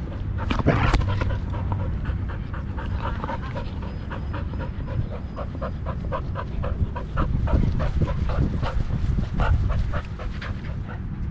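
Pit bull panting quickly and evenly, about four breaths a second, heard close from a camera harness on its back, with low rumbling movement and wind noise as it runs. A louder knock sounds about a second in.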